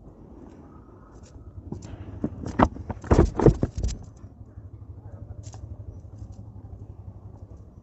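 A quick run of sharp knocks or bumps, about two and a half to four seconds in, over a low steady hum.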